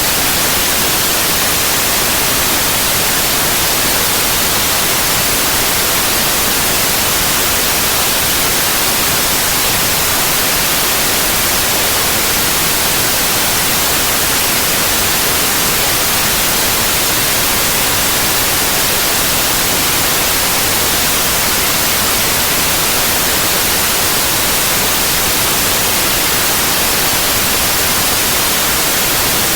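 Synthetic white noise: a steady, even hiss, loud and unchanging.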